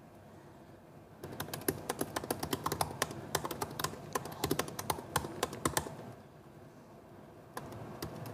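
Typing on a keyboard: a fast run of key clicks starting about a second in and stopping around six seconds, with a few more clicks near the end.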